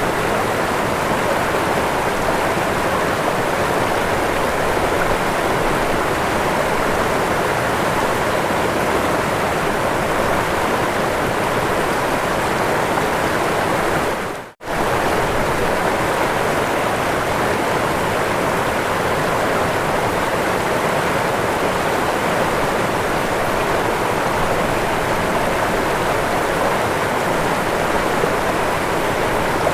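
Waterfall rushing in a steady, even roar of falling water, cutting out for an instant about halfway through.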